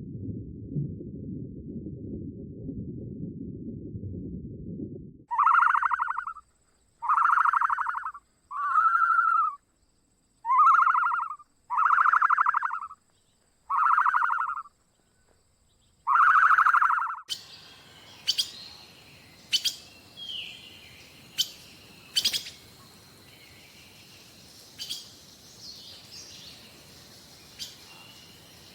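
A low rumble for the first five seconds. Then a buzzy animal call, each about a second long, is repeated seven times. After that come bird chirps and sharp clicks over a faint hiss.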